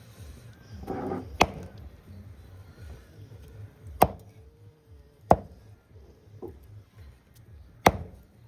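Meat being chopped with a heavy blade on a wooden block: four sharp strikes, a second or more apart.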